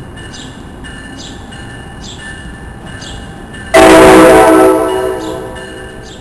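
NJ Transit Multilevel cab car approaching on the station track, its multi-note horn sounding one loud blast a little past halfway that fades away over about two seconds. Behind it a bell rings steadily, about once every 0.7 seconds.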